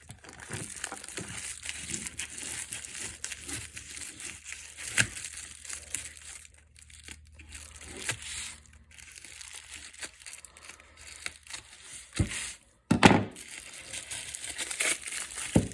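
Packaging crinkling and rustling as a newly bought tool is handled and unwrapped, with small clicks and knocks throughout and a few louder crackling bursts, the loudest about 13 seconds in.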